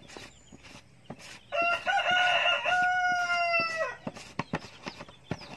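A rooster crows once, a single long call of about two and a half seconds that falls away at the end, amid a few light taps and clicks.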